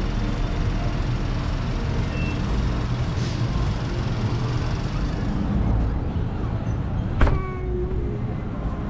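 Steady low rumble of background noise, with one sharp click about seven seconds in that rings briefly.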